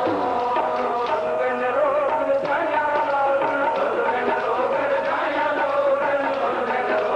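Sikh kirtan: a harmonium holds a sustained melody while tabla strikes keep time, with men's voices singing the shabad.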